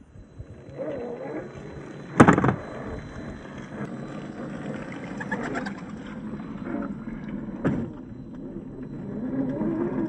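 1/10-scale MST CFX RC crawler's RC4WD 20T electric motor and gearbox whining, pitch rising and falling with the throttle. Two sharp knocks cut through it, the loudest about two seconds in and another near eight seconds.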